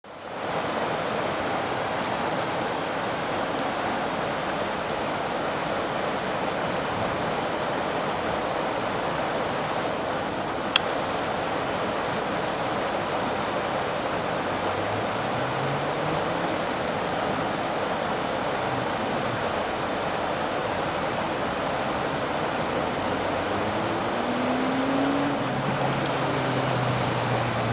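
Steady noise of a flowing stream, with a single sharp click about eleven seconds in. A faint low hum rises in pitch twice in the second half and then holds steady near the end.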